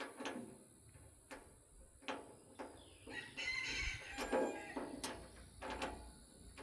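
A bird call about a second long, a little past the middle, amid scattered knocks and clicks.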